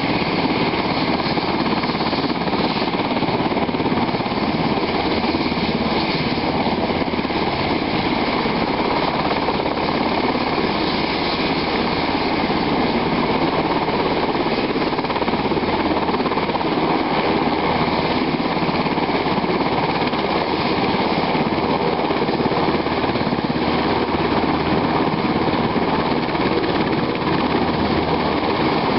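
UH-60 Black Hawk helicopter running on the ground with its main rotor turning. It makes a loud, steady turbine whine over a rhythmic rotor chop as it taxis.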